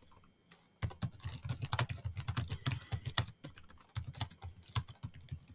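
Typing on a computer keyboard: a fast, irregular run of key clicks that starts about a second in.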